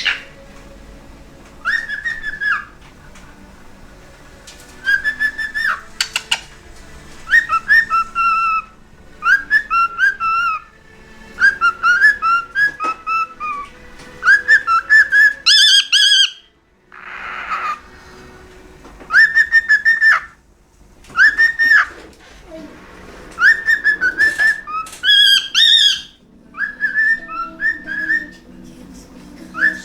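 Pet cockatiel whistling a tune, repeating short warbling phrases of rising and falling notes with brief pauses between them. A short hissing noise comes about halfway through.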